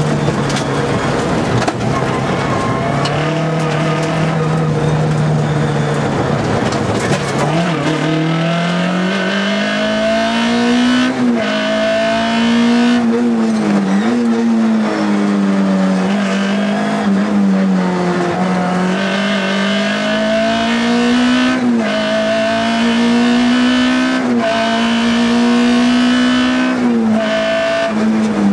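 Škoda Felicia Kit Car rally car's engine heard from inside the cabin, driven hard: the note holds fairly steady for the first several seconds, then the revs repeatedly climb and drop sharply as gears are changed, over tyre and road noise.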